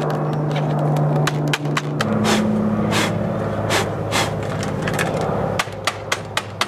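Plastic Dyson vacuum cyclone and canister assembly being smacked by hand, a rapid series of sharp knocks and taps that shake packed dust and cat fur loose. A steady low hum runs underneath and drops in pitch about two seconds in.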